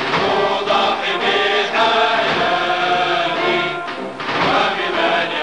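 Music with a choir singing.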